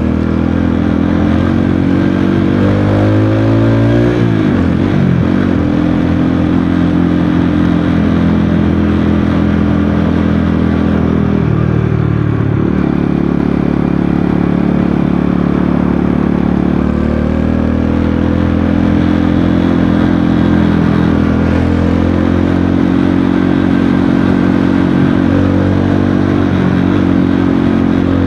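Rusi Korak 110 motorcycle engine running under way, picked up by an action camera riding on the bike. The revs climb a couple of seconds in, fall away sharply about four seconds in, and rise and fall again further on.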